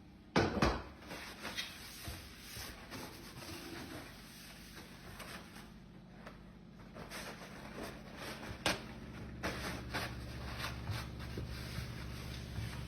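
Knocks and taps of work on a fireplace insert: a loud sharp knock about half a second in, scattered small clicks, and a second knock near nine seconds. After that a low steady hum comes in.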